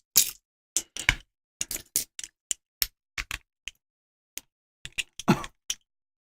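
Irregular sharp metallic clicks and clinks of a padlock being taken apart over a pinning tray to get at its core. The loudest is a heavier knock about five seconds in.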